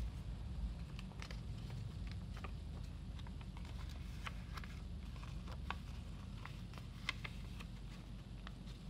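A sheet of origami paper being handled and folded by hand: scattered small crackles and ticks as the paper is bent and creased, over a low steady hum.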